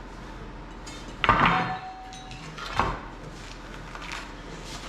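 Two heavy metal clanks about a second and a half apart, the first leaving a short ringing tone, then a lighter knock.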